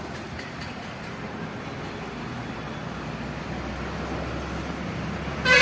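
Steady traffic rumble and noise, slowly growing louder. Near the end a much louder held tone with several pitches starts suddenly.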